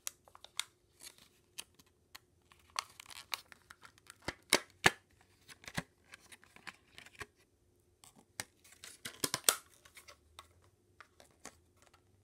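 Clear plastic blister pack being pulled apart from its card backing by hand: a run of crackles, clicks and snaps of the plastic, loudest about four and a half seconds in and again around nine seconds.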